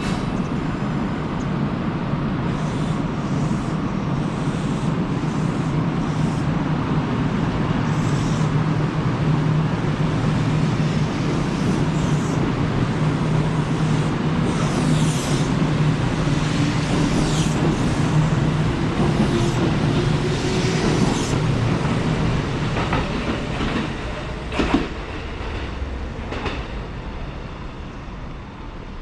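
Kintetsu electric train pulling away from the station: steady running noise with a motor whine that rises in pitch as it accelerates, sharp wheel noises on the rails, and a single sharp click about 25 seconds in. The sound fades over the last few seconds as the train leaves.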